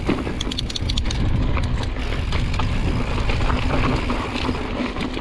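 Mountain bike descending a dirt and rock trail: tyres rolling and crunching over the ground with rattling clicks from the bike, under steady wind rush on the microphone.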